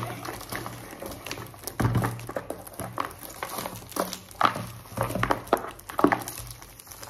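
Gift wrapping being handled and opened: irregular crinkling and rustling of paper, over a faint steady low hum.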